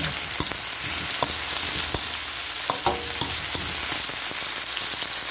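Vegetables sizzling in hot oil in a kawali (wok), with a spatula stirring and scraping through them and a few sharp taps against the pan.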